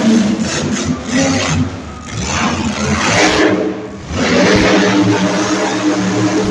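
Monster truck engine revving hard. The throttle drops off about two seconds in and again about four seconds in, picking back up each time.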